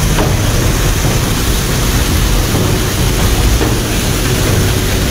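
Muddy floodwater rushing in a fast torrent: a loud, steady rushing noise.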